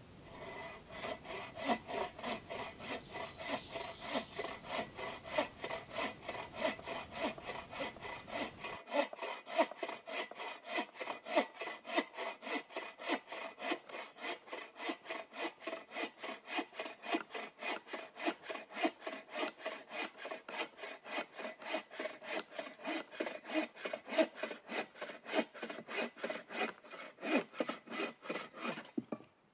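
A hand saw cutting through wood in steady back-and-forth strokes, about three a second, stopping abruptly near the end.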